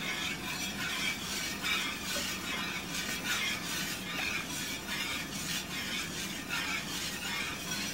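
Flat wire whisk stirring a runny egg-yolk and chicken-stock mixture in a stainless steel frying pan, a steady run of repeated scraping, swishing strokes.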